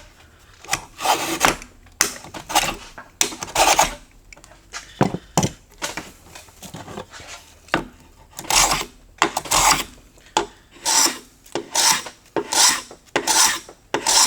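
Low-angle block plane with a freshly sharpened blade being pushed across the end grain of a board to bevel it: a run of short cutting strokes, uneven at first, then settling into a steady rhythm of nearly two strokes a second. The blade cuts easily but tears out a little at the end of the board.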